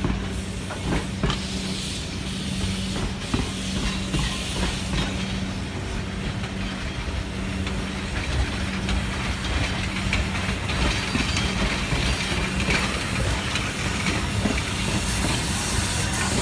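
Black River and Western 2-8-0 steam locomotive No. 60's train rolling slowly over a grade crossing: coaches and a caboose go by with sharp wheel clicks on the rail joints in the first few seconds. The locomotive's steam hiss grows louder toward the end as it comes up to the crossing.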